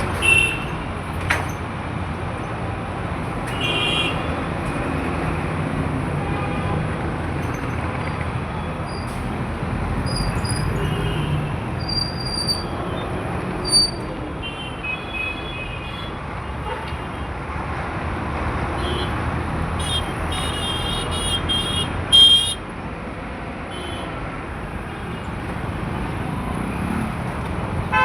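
Busy road traffic running steadily, with vehicle horns honking every so often and a run of several honks about two-thirds of the way through.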